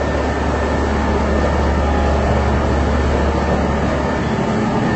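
Steady low hum with an even hiss over it, the constant machinery drone of a basement car park.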